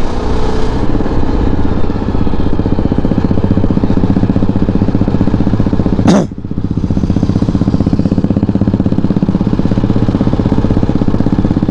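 Motorcycle engine running steadily while under way, its rapid firing pulses close to the microphone. A short sharp burst of noise about six seconds in, after which the engine keeps running.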